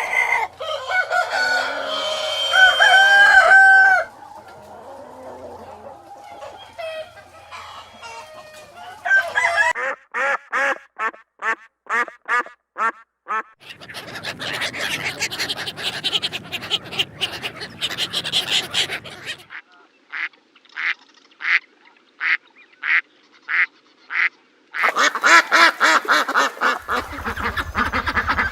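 Farm poultry calling in a run of separate recordings: loud, gliding crow-like calls at the start, then quick clucking calls about four a second, a noisy flock, single calls about two a second, and a flock of waterfowl honking and quacking near the end.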